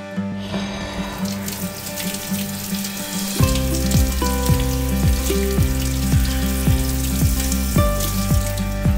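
Tap water running over leafy greens as they are rinsed under a kitchen faucet, with background music; a steady drum beat of about two thumps a second comes in about three and a half seconds in.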